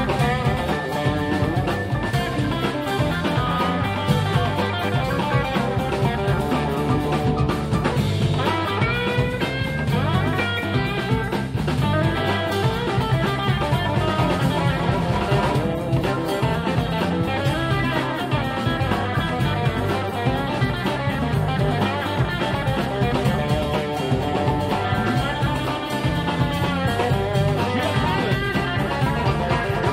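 Live electric blues band playing an instrumental passage: a lead line with bent notes over a steady bass and drum groove, guitar to the fore.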